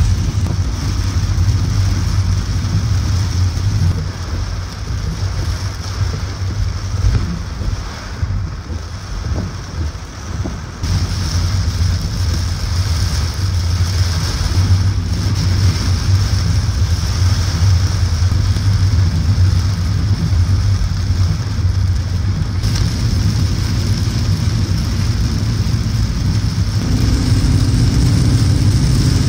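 A car driving on a rain-soaked road in heavy rain: steady rumble of tyres on the wet road, with the hiss of rain and spray. It eases off for a few seconds and picks up again, and a steady low engine hum comes in near the end.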